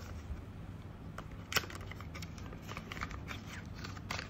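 Small cardboard accessory box being handled and opened: soft rustles and scrapes of card, with light clicks and taps. The sharpest click comes about a second and a half in, and a few more come near the end.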